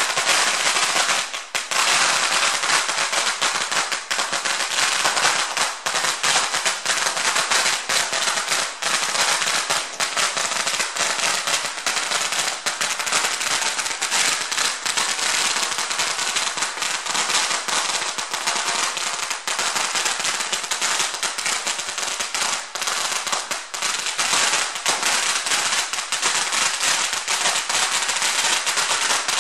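88-foot string of red Chinese firecrackers burning, a dense, unbroken rattle of rapid bangs, with a brief dip about a second and a half in.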